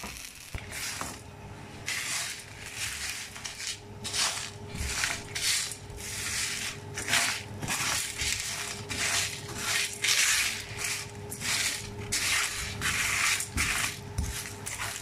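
Whole spices (cumin and coriander seeds, bay leaves, cinnamon sticks, cardamom pods) rustling and scraping in a dry nonstick pan as a silicone spatula stirs them, in a run of short irregular strokes about one or two a second. The spices are being dry-roasted on low heat.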